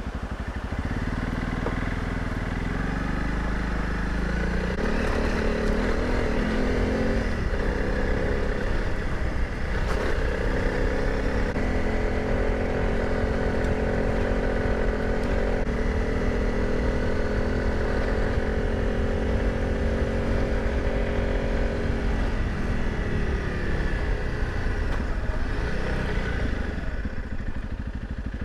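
Honda CRF300 Rally's single-cylinder engine running under way on a gravel road. It picks up speed a few seconds in, holds a steady pitch with one brief dip, eases off a few seconds before the end, then picks up again.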